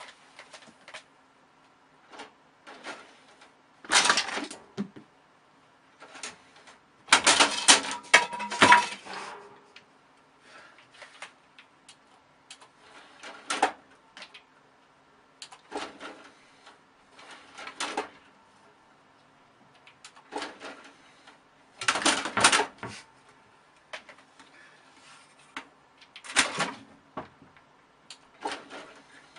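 Irregular knocking, scraping and rattling of objects as a kitten scrabbles around behind a computer case and curtain. A few louder clattering bursts stand out, with quieter taps and scuffs between them.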